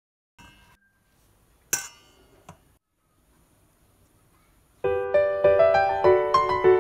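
Two sharp clinks of kitchenware, the first loud with a brief ring and the second softer, then a gentle piano tune begins about five seconds in and becomes the loudest sound.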